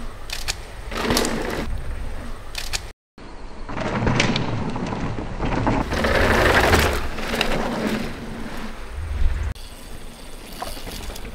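Mountain bike riding fast down a dirt flow trail, heard from a camera on the bike or rider: a steady rumble of tyres and trail noise with scattered sharp knocks and rattles from the bike. The sound cuts out briefly about three seconds in.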